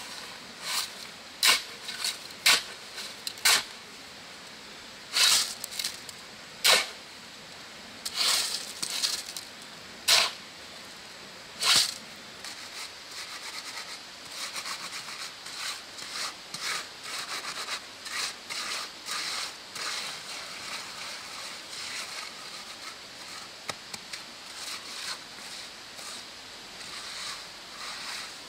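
Steel trowel scraping and spreading wet cement mortar. About a dozen sharp, separate strokes come first. From about halfway in, a steady run of quicker, lighter scrapes follows, about two a second.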